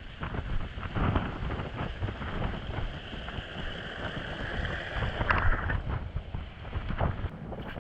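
Gusty wind buffeting the microphone with a low rumble, broken by a few short knocks.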